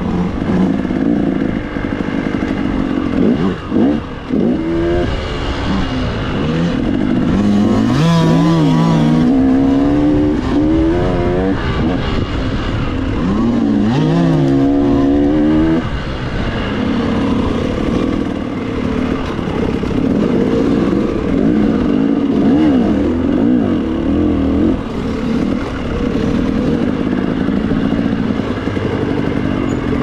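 Dirt bike engine under way on a trail, the throttle worked so that the pitch rises and falls several times in the first half. From about halfway it runs a little quieter and more evenly, with small changes in pitch.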